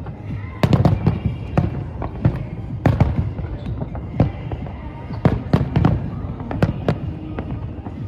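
Aerial fireworks shells bursting in quick, irregular succession, a dozen or more sharp bangs over a continuous low rumble of echoing reports.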